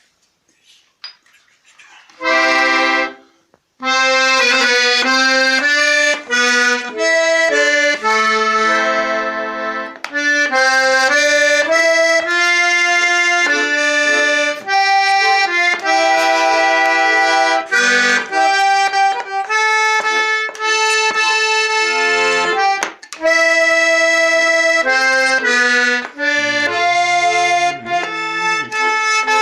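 Russian garmon (button accordion) playing a folk tune instrumentally, melody over held chords and bass. One short chord sounds about two seconds in, then the playing runs on continuously from about four seconds in.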